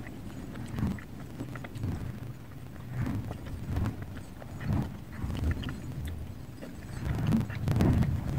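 A person chewing a large mouthful of chocolate and peanut butter candy with the mouth closed. The soft, moist chews come in a slow, steady rhythm of about one a second, with small mouth clicks, and grow louder near the end.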